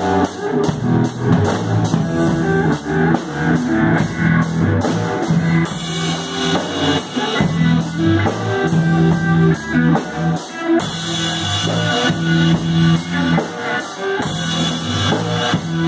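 Small rock band playing: electric guitar over a drum kit keeping a steady beat.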